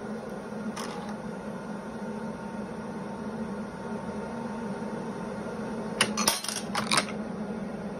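Induction annealer with a stepper-driven case feeder running with a steady hum, a single click about a second in. About six seconds in, brass cartridge cases clink sharply four or five times as the annealed case drops out of the coil and the feeder sets the next one in.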